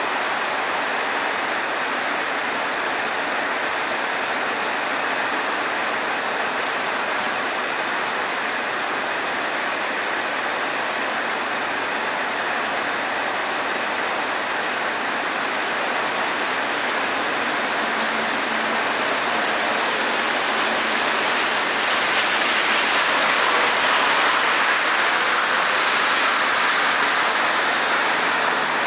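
Steady rain falling on dense leafy forest foliage, an even hiss with no other sound standing out; it grows a little heavier about two-thirds of the way through.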